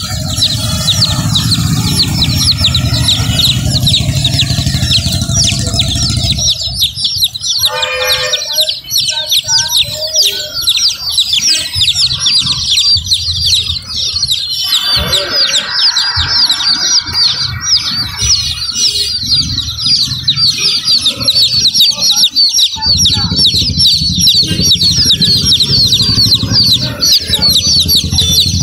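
A crowd of baby chicks peeping constantly, many short, high, downward-sliding cheeps overlapping one another. A low rumble runs underneath for about the first six seconds and again near the end.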